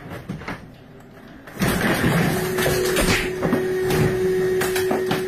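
Suspended ceiling tiles and a light panel collapsing: about a second and a half in the sound jumps to loud crashing and clattering with many sharp knocks, which keeps going. A steady tone comes in soon after.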